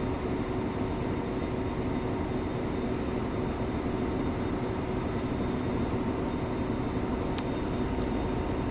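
Steady hum of an idling diesel train, with a few held tones over a broad engine noise that does not change. Two short clicks come near the end.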